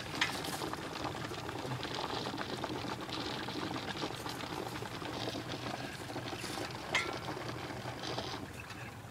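Hot coolant bubbling and crackling in an Audi A6 2.7T's coolant expansion tank, with a couple of sharper clicks: the coolant is boiling over after hard driving, a sign of the engine overheating.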